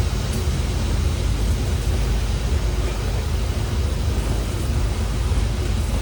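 Heavy freight train climbing a grade: a steady, loud low rumble of the passing train.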